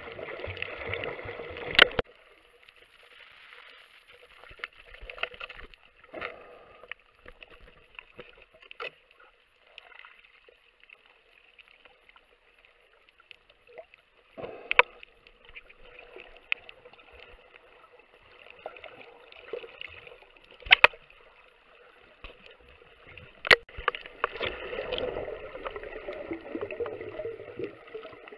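Underwater sound picked up by a camera in its housing: a faint steady hiss with scattered sharp clicks, and louder bubbling rushes at the start and again from about 24 s in.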